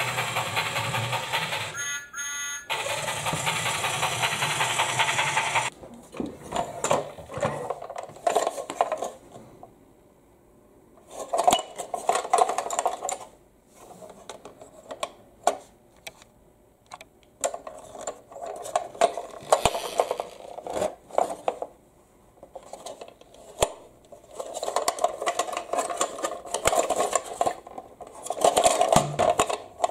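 A steady whirring noise that cuts off suddenly about six seconds in, then a hard plastic toy locomotive being handled and turned over in the hands: plastic rubbing and scraping with scattered clicks and knocks.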